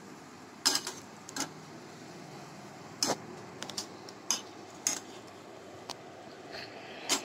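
Wire spider skimmer clinking and scraping against a steel frying pan as pieces of wheat-flour sweet are turned in hot oil: about ten irregular sharp clinks over a steady sizzle of deep-frying oil.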